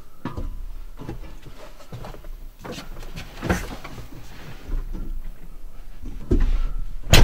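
Knocks and clunks of a person climbing into a tractor cab and moving about at the controls, several separate thumps over a low rumble, with one loud sharp knock near the end.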